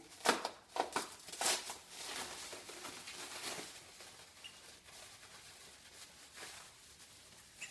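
Packing material rustling and crinkling as packaged parts are unwrapped and handled, busiest in the first couple of seconds and then quieter.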